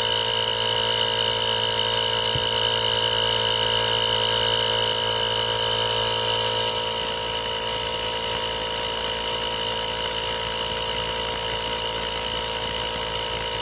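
Total TACLI2001 20V cordless single-piston air compressor running steadily as it pumps up a car tyre through the valve chuck, a steady motor-and-piston hum that gets a little quieter about halfway through.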